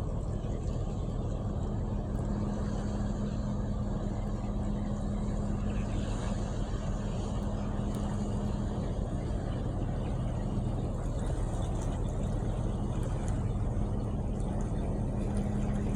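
Engine droning steadily with a constant low hum and rumble.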